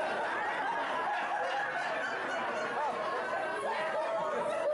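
Many people chattering and laughing at once, a steady hubbub of overlapping voices with snickers.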